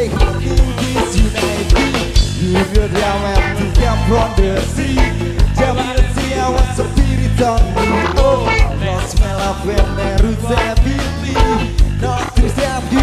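Live band music with electric guitars and drums keeping a steady beat about twice a second, under a sung vocal line.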